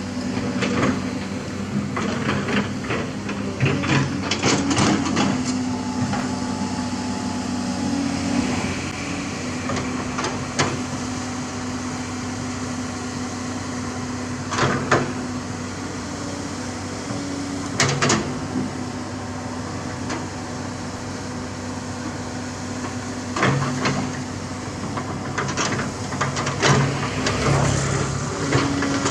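Komatsu PC228 hydraulic excavator's diesel engine running steadily as it strips grass and soil from a bank, with sharp knocks and clanks at irregular intervals, several in a cluster near the start and again near the end.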